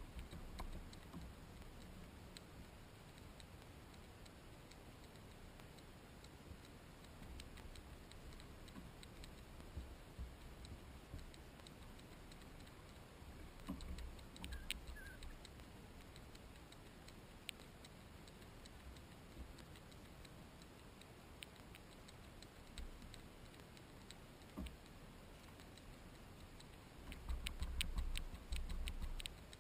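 Faint, scattered clicks and light knocks from fly-fishing gear and the kayak as the angler works his line, over a low rumble; near the end a denser run of clicks with a stronger rumble.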